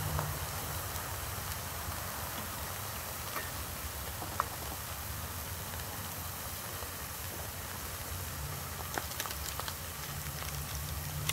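Wood fire burning in a small camp stove that has just been fed fresh wood, crackling with a few sharp pops over a steady low rumble.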